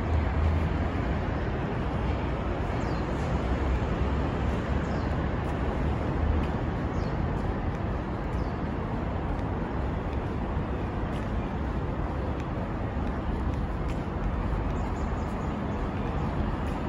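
Steady outdoor urban ambience: a continuous rumble of road traffic with a deep low drone, and a few faint short high chirps.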